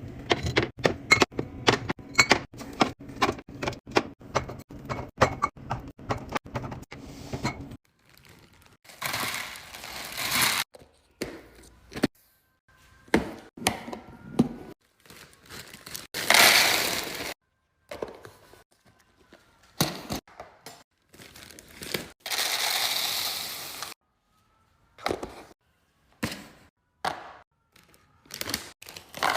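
Containers, jars and bottles being handled and set down while a fridge is restocked: for the first eight seconds a fast run of clicks and taps over a steady low hum, then separate knocks and clinks with several hissing bursts, each stopping abruptly.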